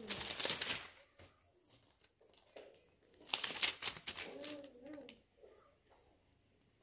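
Thin Bible pages being leafed through and turned, rustling in two bursts with small paper ticks between. A brief murmur of a voice comes about four and a half seconds in.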